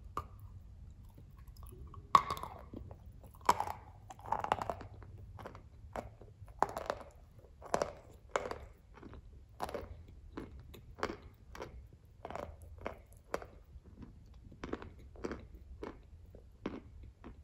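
A hard, crunchy grey-green glazed block ('glaze tile') is bitten and chewed close to the microphone. There is one sharp, loud crunch as a piece snaps off about two seconds in, then steady crunchy chewing at about two crunches a second.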